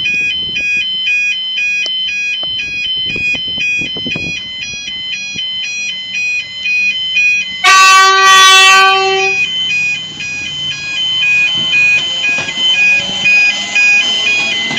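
Railway level crossing bells ringing in a steady alternating two-note pattern. About eight seconds in, a train horn sounds one loud blast of about a second and a half. After that the rushing noise of the passing train rises.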